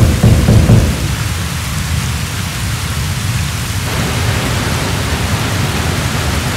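Dettifoss waterfall: a loud, steady rush of falling water with a deep rumble underneath. The rumble swells strongest in the first second.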